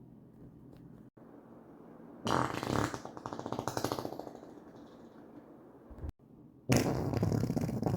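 Human farts. About two seconds in, one comes out as a rapid sputtering flutter lasting about two seconds. After a short break, a second, louder one starts near the end and carries on.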